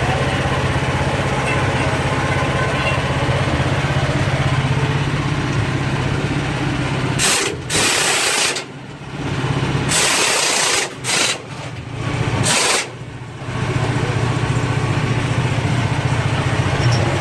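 An engine idles steadily. Between about seven and thirteen seconds in, it gives way to several loud bursts of hissing, each up to about a second long.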